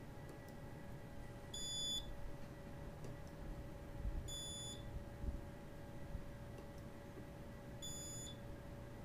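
Micro-Measurements Model 700 strain-gauge welder giving three short, high beeps about three seconds apart, over a faint steady hum, with a few soft low knocks from handling near the middle.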